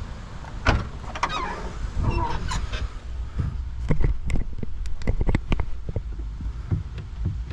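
Irregular clicks and knocks, with some squeaky scraping near the start, from hands working a car taillight assembly and its mounting bolts and washers.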